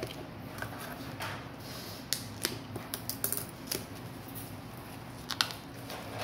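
Clear plastic wrap being peeled and crumpled off a book by hand, crinkling in a string of sharp, irregular crackles, the loudest about five seconds in.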